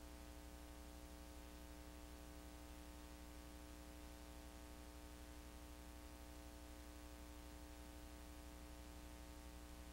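Near silence: a faint steady hum with hiss, unchanging throughout.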